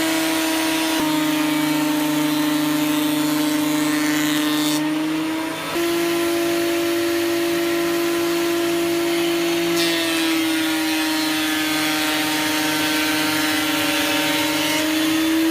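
Ryobi RAP1500G thickness planer running and planing timber. The motor's pitch drops under load as a board feeds through about a second in, comes back up near six seconds, then drops again for a second pass around ten seconds and recovers near the end.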